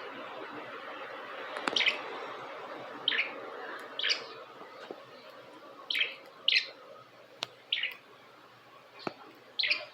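Budgerigars giving short, sharp chirps: about seven single calls spaced out over several seconds, with a couple of faint clicks between them.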